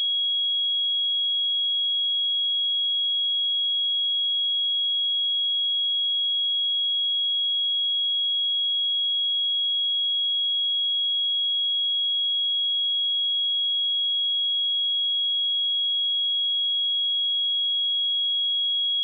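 Steady 3315 Hz sine-wave test tone: a single pure high-pitched tone held at constant pitch and level.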